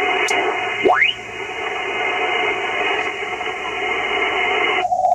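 Icom IC-7300 transceiver's speaker giving out 80-metre band noise in LSB: a steady hiss with a whistle that rises quickly in pitch about a second in, as the dial is tuned across a signal. Near the end the hiss cuts off abruptly, leaving a narrow, hollow-sounding noise at one pitch, as the radio is switched to CW mode with its narrow filter.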